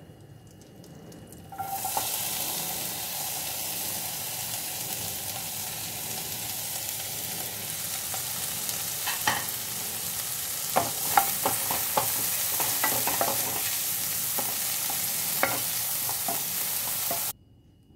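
Diced bell peppers and onion sizzling in hot butter in a nonstick frying pan. The sizzle starts suddenly about a second and a half in, as the vegetables hit the pan. From about halfway on, a wooden spatula knocks and scrapes against the pan as they are stirred, and the sizzle stops abruptly near the end.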